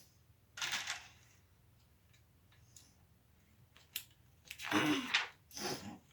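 Plastic Lego Technic pieces being handled and sorted: three short bursts of rattling and rustling, with a single sharp click just before the second burst.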